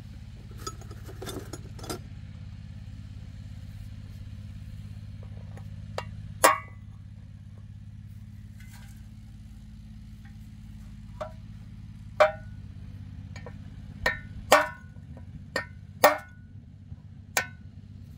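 Sharp metallic clinks and knocks of steel hand tools against a steel plough disc, one about six seconds in and a cluster of them in the last third, over a steady low engine hum.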